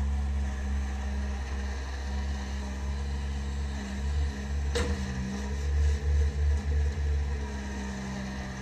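Bobcat 763 skid-steer loader's diesel engine running steadily while it raises its bucket over a dump truck, with one sharp clank about five seconds in.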